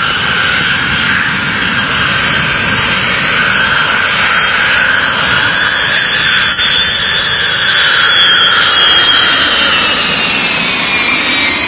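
Jet airliner engines passing overhead: a steady, loud jet noise with a high whine that falls in pitch over the last few seconds as it goes by, growing a little louder about two-thirds of the way through.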